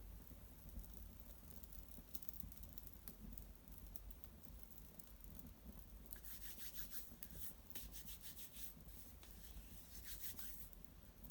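Small fire of dried maple brushwood crackling softly in an irori hearth: scattered faint crackles, with a denser run of fine crackling from about six to ten seconds in.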